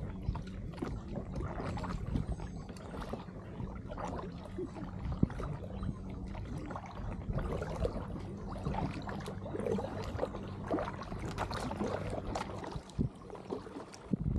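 Kayak paddle dipping and pulling through calm water, with irregular splashes and drips off the blade, over a steady low hum.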